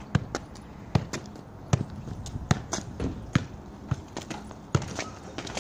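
A steady run of sharp thuds, a little more than one a second, with fainter knocks in between.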